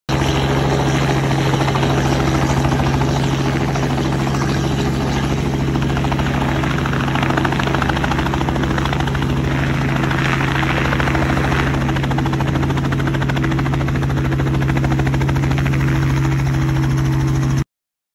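Helicopter in flight: a loud, steady drone of engine and rotor with a fast, even blade chop, cutting off suddenly near the end.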